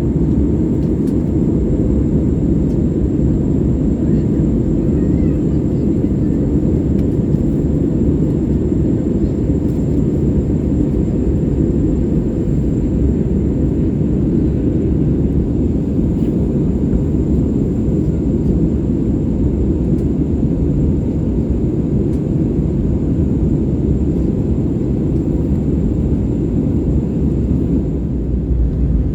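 Steady cabin noise inside an Airbus A320neo airliner during descent: a constant roar of its CFM LEAP-1A turbofan engines and airflow past the fuselage, with a faint steady high-pitched whine above it.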